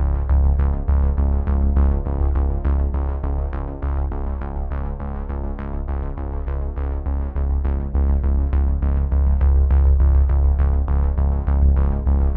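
Background instrumental music with a steady pulse of about four notes a second over a strong bass.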